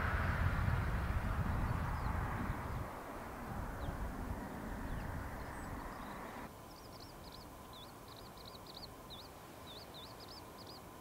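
A steady rushing outdoor noise, heavy in the low end for the first few seconds and then easing. About two-thirds of the way in it drops away, and a small bird sings a quick run of high, repeated chirping notes.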